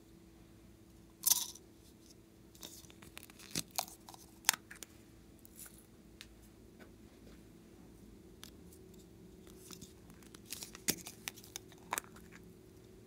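Scattered clicks and taps of small plastic containers and slime toppings being handled, in small groups with gaps between, over a faint steady hum.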